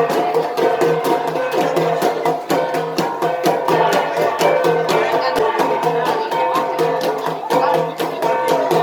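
An ensemble of gangsa, flat bronze gongs, struck in a fast, continuous interlocking rhythm, their ringing tones sustained under the strokes.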